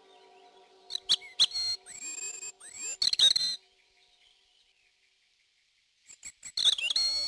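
Eurasian blackbirds calling: a rapid burst of sharp clicking calls and high whistles gliding up and down, then a pause, then another burst of sharp calls near the end, over faint background music.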